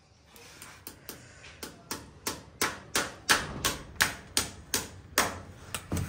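Farrier's hammer tapping a horseshoe nail into a horse's hoof in a steady run of strikes, about three a second, starting soft and growing louder.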